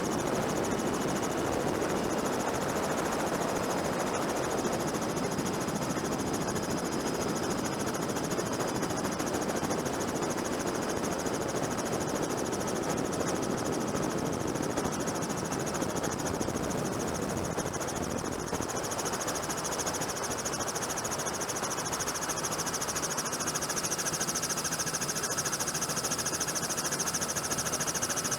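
Helicopter rotor and turbine noise, steady throughout, with fast even blade pulsing and a thin high whine over it.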